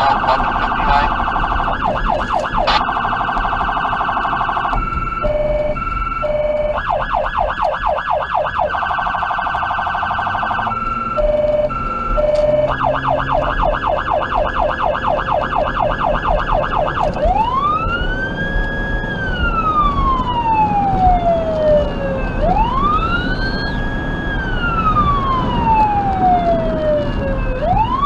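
Federal Signal Touchmaster Delta electronic siren on an emergency response, through its dual 100-watt speakers. It runs a fast yelp broken twice by a brief two-tone hi-lo, then switches to a slow wail that rises and falls about every five seconds.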